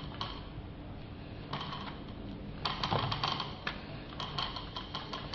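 A paintbrush dabbing resin into fiberglass chopped-strand mat, making quick runs of soft taps in about three bursts. It is stippling that presses the mat down and wets it out with resin.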